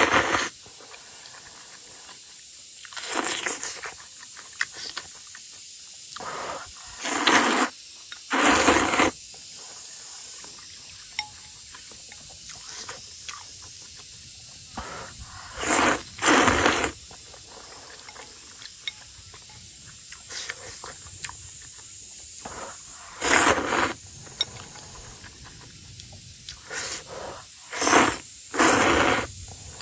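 A person slurping hot-and-sour rice noodles (suan la fen) from a bowl: short hissing sucks every few seconds, often two in quick succession.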